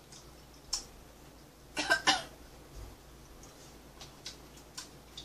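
Chopsticks and spoons clicking against dishes and bowls while eating: a few light clicks, a louder double sound about two seconds in, and faint ticks near the end.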